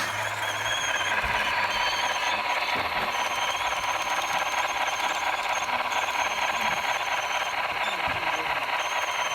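HO-scale model train running on its track: a steady electric motor and wheel noise with a high squeal that comes and goes.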